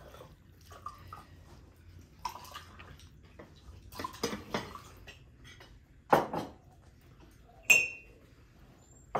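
Cutlery and tableware clinking on plates and glasses at a meal table, in scattered knocks and clinks. One clink near the end rings briefly.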